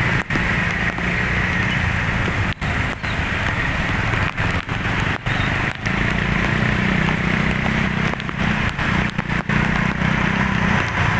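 Large vehicle engine running steadily with road noise, the engine hum growing stronger about six seconds in; the sound cuts out for an instant several times.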